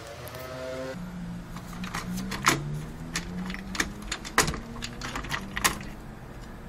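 Irregular plastic clicks and knocks as the stock Intel CPU cooler is unclipped and worked loose from the motherboard by hand, over a low steady hum.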